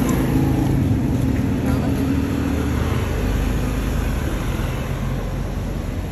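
Street traffic heard while moving along the road: a steady engine-like drone that changes about three seconds in to a deeper low rumble, over constant road noise.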